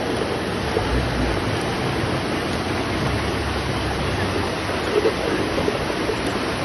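Muddy floodwater rushing across a flooded street, a steady, even roar like a fast river.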